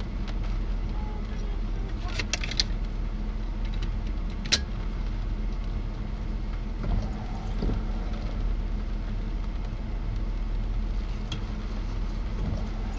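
A vehicle's engine idling, heard from inside the cabin as a steady low hum, with a few sharp clicks about two seconds in and a single one about four and a half seconds in.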